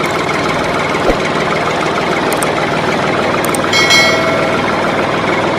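Tractor engine idling steadily with a knocking rhythm. About four seconds in there is a short pitched tone.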